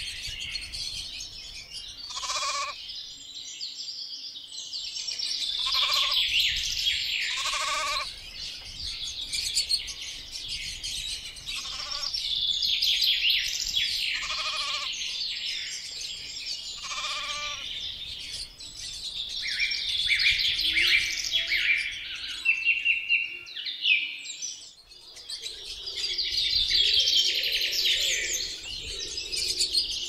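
Dense chorus of songbirds chirping continuously, with short sheep bleats repeating every few seconds through the first half.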